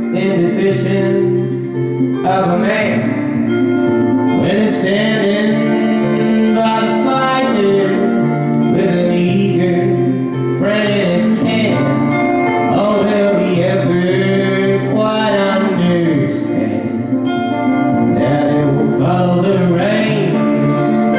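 A solo male voice singing a folk song live, accompanied by his own electric guitar.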